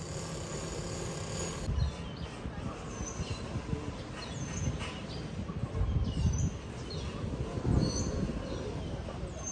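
Small birds chirping in the trees, short high calls repeated about once a second, over a steady low rumble with a few louder surges.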